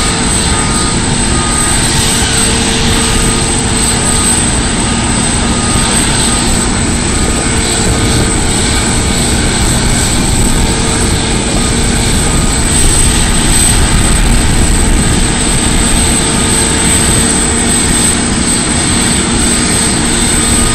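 Boeing 747-8F freighter's four GEnx-2B turbofan engines running at taxi idle: a loud, steady rumble with a high whine over it.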